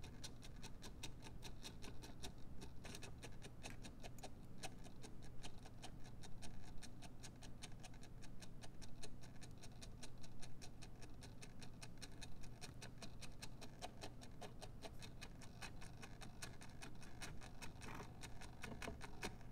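Contact-microphone-and-loudspeaker sound sculpture with a motor-driven plastic gear, producing a fast, even ticking of several clicks a second over a steady low hum.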